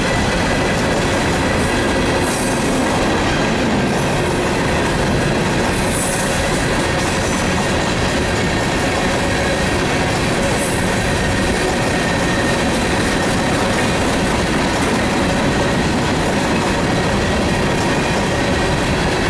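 Empty steel coal hopper cars of a freight train rolling past, a loud, steady rumble of wheels on rail with thin high squealing from the wheels running through it.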